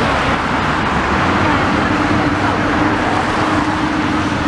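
Road traffic: cars passing close by, a steady rush of tyres and engines, with a steady low hum coming in about a second in.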